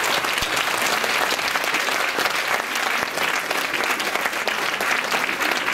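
Audience applauding steadily: many people clapping at once in a room.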